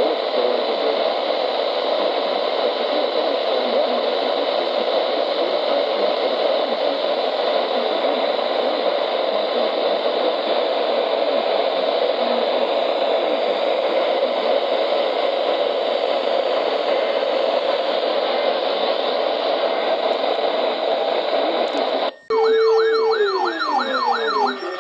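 Weather-radio receiver hissing with steady static between broadcasts. Near the end it cuts out briefly and switches to warbling, wavering tones with a few falling glides.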